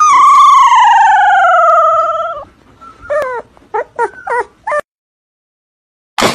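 Shiba Inu puppy whining: one long howl-like whine that slides down in pitch over about two and a half seconds, then five or six short whimpers. A sharp bang right at the end.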